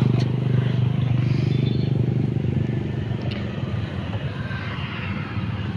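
Motorcycle engine running at idle with a steady even beat, settling a little quieter over the first few seconds.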